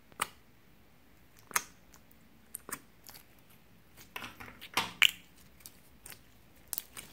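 Clear pink glossy slime being squeezed and pressed by hand, giving irregular sticky clicks and squelching pops, with a quick cluster of them about four to five seconds in.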